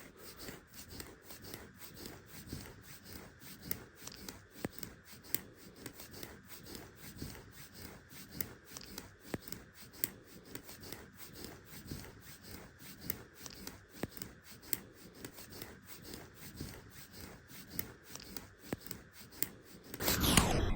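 Fingernails scratching eczema-covered skin on an arm, a rasping scratch repeated in quick, even strokes, roughly three to four a second. About twenty seconds in, a louder rubbing noise breaks in.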